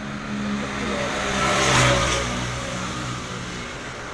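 A motor vehicle's engine running as it passes close by on the road, growing louder to a peak about two seconds in and then fading.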